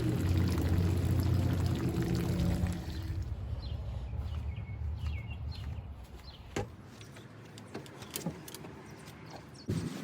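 A steady motor hum for about the first three seconds that then fades away, followed by a quieter stretch with a few faint chirps and a couple of sharp clicks.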